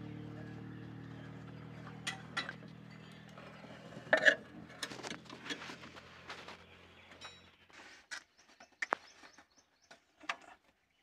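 Scattered clicks, knocks and metal clinks of tools and handling around an engine under repair, the loudest about four seconds in. Under them a steady low hum of a running motor fades and cuts off about seven and a half seconds in.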